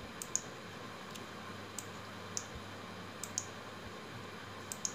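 Light taps on a smartphone touchscreen while colour swatches are picked: a few faint, short, sharp clicks, several of them in close pairs, over a steady faint hiss.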